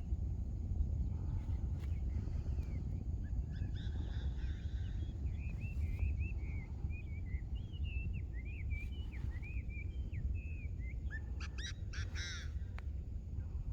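Wild birds calling over a steady low rumble: a run of short chirping calls through the middle, then a few harsher calls with several overtones near the end.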